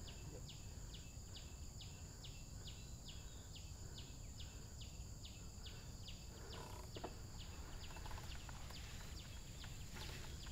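Outdoor wildlife ambience: a steady high-pitched insect drone with a short high chirp repeating evenly about two to three times a second.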